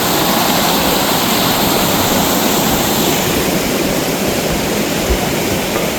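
Steady rushing of a waterfall, an even noise of falling water that holds without a break.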